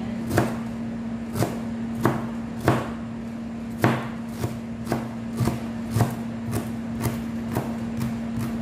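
Kitchen knife chopping cabbage on a plastic cutting board: sharp, uneven knocks about two a second, over a steady low hum.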